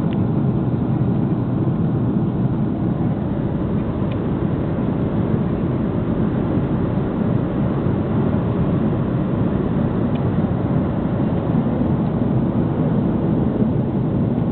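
Steady cabin noise of an Airbus A330 at altitude, heard from inside the passenger cabin: an even, low roar of the engines and airflow with no change in pitch or level.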